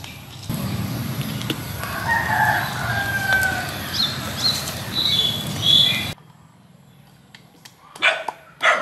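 A rooster crows and chickens call over a steady low rumble. After an abrupt cut about six seconds in, a wooden pestle knocks a couple of times in a wooden mortar near the end.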